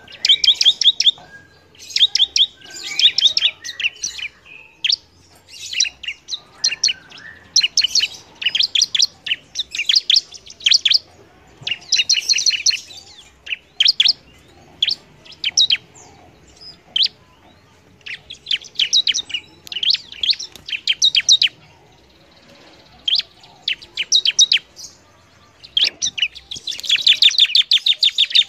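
A ciblek (prinia) singing: fast trills of sharp, high repeated notes in phrases of a second or two, with short pauses between them. It is the full, persistent song that keepers call gacor and use to tutor other songbirds.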